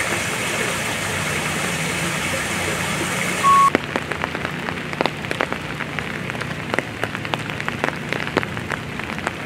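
Steady rain hiss over an idling vehicle engine's low hum, broken about three and a half seconds in by a short loud beep. Then rain alone, with many separate drops ticking and splashing close by.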